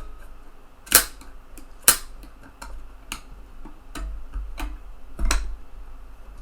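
Sharp plastic-and-metal clicks and snaps from the eject mechanism of a TEAC FD-235F 3.5-inch floppy drive being worked by hand, a latch and carriage catching and letting go. The clicks come irregularly, a second or so apart with small ticks between, the loudest about five seconds in.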